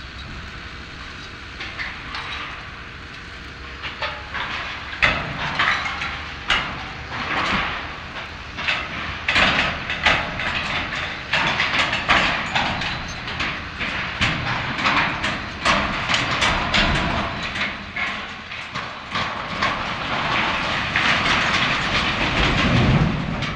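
Steel-truss building frame giving way as it is pulled down with cables: irregular metal snaps, pops and clanks begin about four seconds in and come faster and louder, ending in a continuous loud crash of steel and fabric roofing as the roof comes down near the end.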